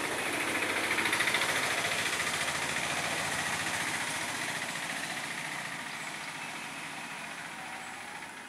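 A running vehicle engine with a fast, even pulse. It is loudest about a second in and then slowly fades.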